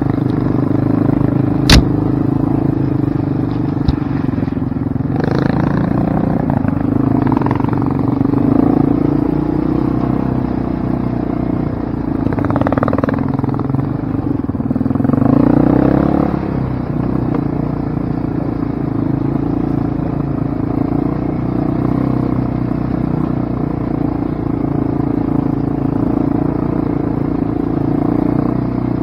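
Quad (ATV) engine running throughout, its pitch rising and falling as the throttle is worked over rough trail, loudest about fifteen seconds in. A sharp knock comes about two seconds in and a smaller one about four seconds in.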